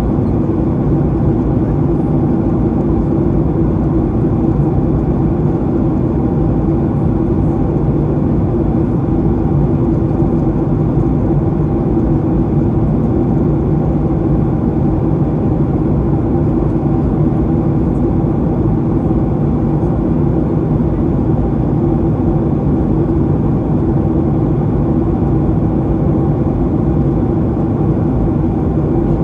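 Steady cabin drone of a Boeing 737-800 in flight, heard from a rear window seat: the CFM56 turbofan engines and the airflow make an even roar with a low hum running through it.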